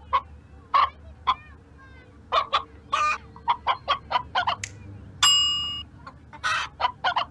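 Hen clucking in many short, irregular calls. About five seconds in, a single ringing ding, the loudest sound here, fades out over about half a second.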